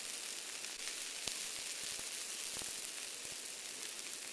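Bacon grill sizzling in a frying pan: a steady hiss with a few faint crackles.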